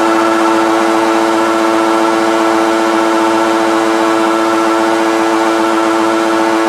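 Suzuki GSF400 inline-four motorcycle engine in a Kawasaki Mule side-by-side, held at high revs: one steady, high-pitched engine note that neither rises nor falls.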